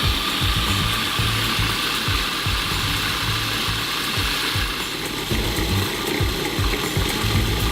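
Food processor motor running, its blade grinding roasted cashews into cashew butter with a steady mechanical noise.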